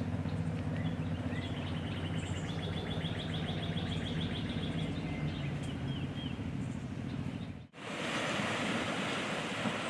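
Outdoor ambience: birds chirping, one of them trilling rapidly for a few seconds, over a steady low mechanical hum. Near the end, after a sudden cut, a steady broad rush of wind and water takes over.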